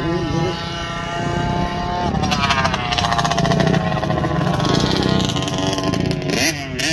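Dirt bike engine revving under throttle. Its pitch sinks slowly through the middle and climbs sharply again near the end.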